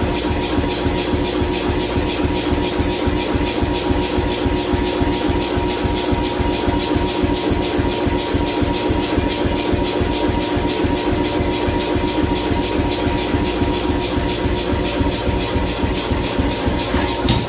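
Power hammer running with a steady, rapid mechanical pulsing and a constant motor hum, not yet striking the work.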